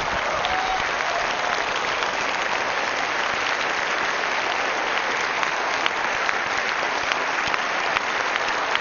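Large audience applauding, steady dense clapping through a standing ovation.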